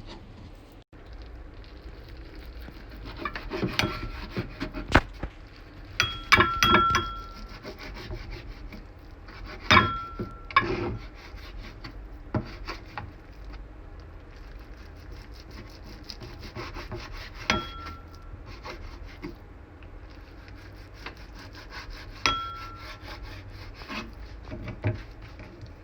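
A metal utensil scraping and stirring in a pan over a steady crackle, with a few sharp knocks against the pan that ring briefly, the loudest around ten seconds in.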